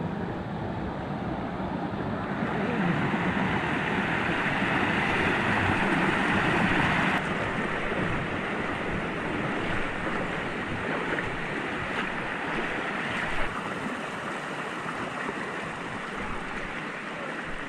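Waterfall pouring: a steady rush of falling water, a little louder for the first several seconds, then dropping suddenly about seven seconds in.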